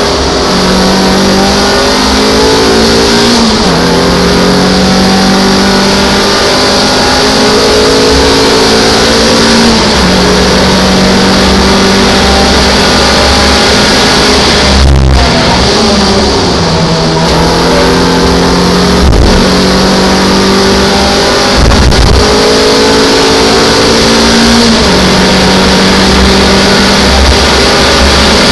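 Onboard sound of a racing MGF's mid-mounted four-cylinder engine at full throttle through the gears. The pitch climbs and drops back at each upshift, about five times, over a steady high hiss.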